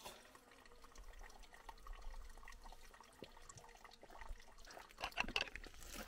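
A weak trickle of spring water barely flowing, splashing and dripping softly, with a few louder splashes near the end.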